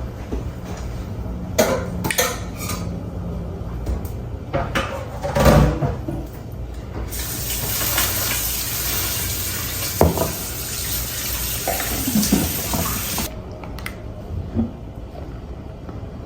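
Dishes and cutlery clinking and knocking in a kitchen sink, with a tap running for about six seconds from the middle of the stretch until it is shut off abruptly.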